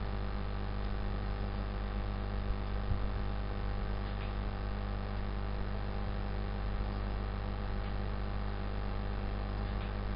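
Steady electrical mains hum and buzz made of many even tones, with a few faint clicks a few seconds in.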